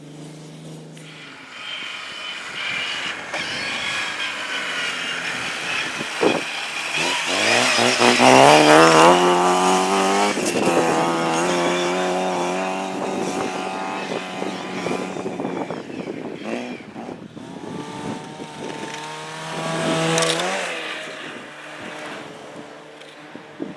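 A car engine revving hard as it accelerates on a snowy track, its pitch climbing to the loudest point about a third of the way in, then running steadily at high revs, with another rise and fall in revs near the end.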